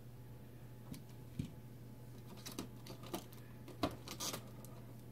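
Small hard plastic figure parts and their packaging being handled: a scattered run of light clicks and taps, the sharpest a little after a second in and just before four seconds, followed by a short rustle.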